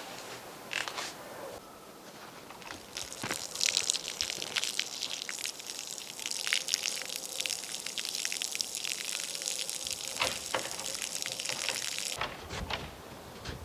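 Water pouring and splashing in a dense, crackling rush that stops abruptly near the end.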